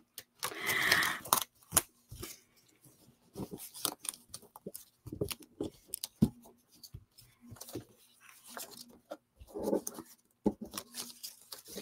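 Paper and cardstock being handled on a tabletop: scattered light taps and clicks as strips are placed, a short rustle about a second in, and another rustle near ten seconds as a page is lifted.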